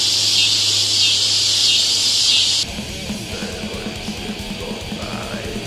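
Loud, steady cicada buzzing at the opening of the track, cutting off suddenly about two and a half seconds in. A quiet music intro with an evenly pulsing low note follows.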